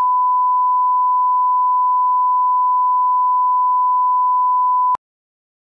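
Broadcast line-up tone played with colour bars: one steady pure beep, held for about five seconds, then cut off suddenly.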